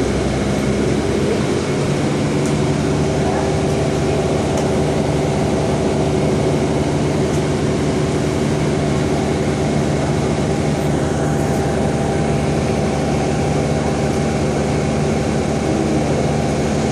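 City bus engine running with a steady drone and hum, heard from inside the passenger cabin.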